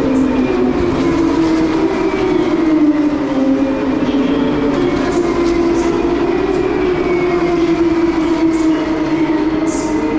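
Distant racing car engines running together as a loud, steady drone, several overlapping pitches slowly rising and falling.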